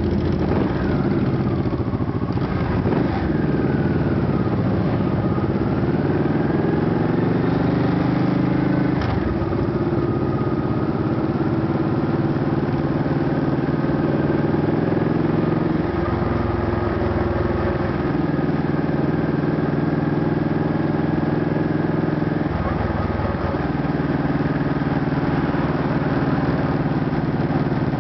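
Honda Shadow ACE Tourer's V-twin engine running under way at low town speed, heard from the saddle behind the windshield. Its pitch drops a few seconds in, climbs again, then shifts twice more as the bike slows and picks up with the traffic, with other motorcycles running close by.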